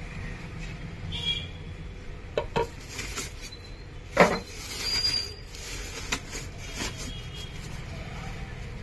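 Handling noises of kitchenware being unpacked: a glass pot lid and a ceramic slow-cooker pot knocking and clinking against each other and the cardboard box, with plastic wrapping rustling. A series of short knocks, the loudest about four seconds in.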